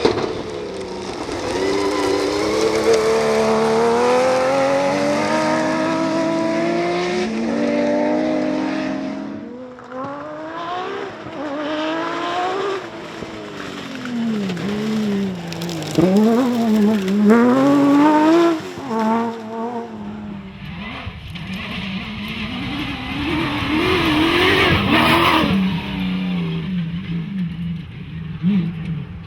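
Rally car engines at full effort on a special stage. For the first nine seconds the engine note climbs in steps through hard acceleration and gear changes. Then the revs swing sharply up and down with lifts and throttle blips. From about twenty seconds in, another engine note wavers under a rushing haze of tyre and stone noise.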